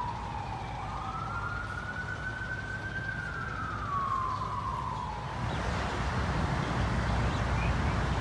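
Emergency vehicle siren in a slow wail, its pitch falling, rising and falling again over about five seconds. It then gives way to a louder rushing noise with a low rumble, like road traffic.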